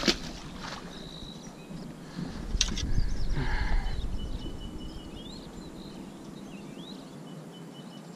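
A small bass splashes once into the lake as it is released. About two to four seconds in there is a stretch of low rumbling noise, and faint bird chirps follow.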